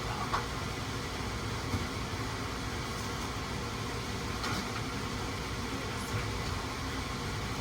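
Steady background hum of the room, with a few faint light taps scattered through it.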